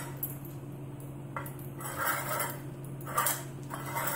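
Metal muffin tin rattling and scraping on a tile floor as a husky noses and shoves the tennis balls in its cups, in several short bouts: about a second and a half in, around three seconds and near the end.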